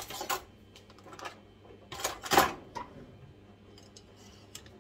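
Quiet kitchen handling sounds as a knife and things on the counter are picked up and set down: a few light clicks and one brief louder noise about two seconds in.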